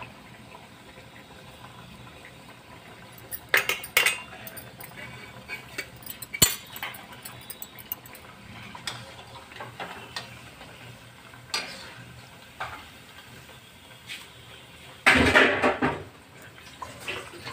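Thekua deep-frying in hot oil in a steel kadhai, a faint steady sizzle, broken by several sharp clinks of a steel slotted spoon against the pan. A longer, louder scrape of the spoon comes near the end.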